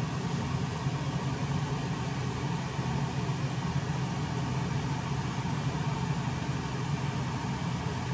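A steady low machine hum that holds level and pitch throughout, with no distinct events.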